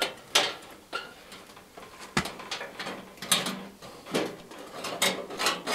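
Plastic outer casing of a paraffin heater knocking and scraping against the heater's metal frame as it is worked loose and lifted off, with about half a dozen separate knocks and one sharper knock about two seconds in.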